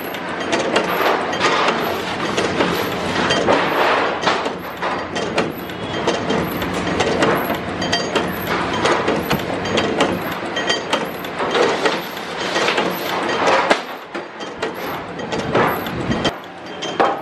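Biscuit dough-cutting machine running: a dense, continuous clatter of metal knocks over a steady hum.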